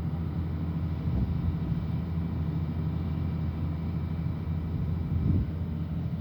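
Excavator diesel engine running steadily, with a brief swell in level about five seconds in.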